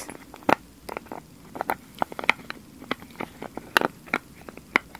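Plastic sunscreen bottle and its snap cap handled close to the microphone: a run of irregular sharp clicks and taps as the cap is worked open and closed.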